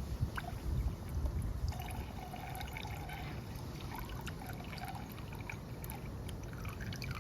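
Hydrogen peroxide trickling from its bottle into a plastic measuring cup, a steady pour that starts a little under two seconds in, after some low rumbling bumps.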